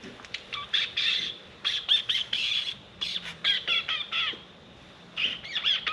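Metal threads squeaking as a threaded steel part is twisted by hand: a run of short, high, wavering squeaks in bursts, with a pause a little past the middle.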